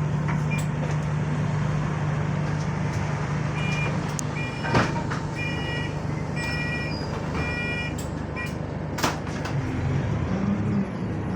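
Bus interior with the engine and drivetrain humming steadily. Midway comes a run of short repeated electronic beeps, typical of a door warning, along with two sharp bursts, the first being the loudest.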